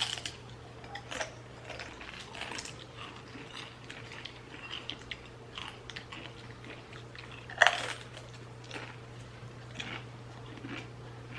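A person chewing a crunchy snack close to the microphone: irregular small crunches, with one sharper, louder crunch about eight seconds in. A steady low hum runs underneath.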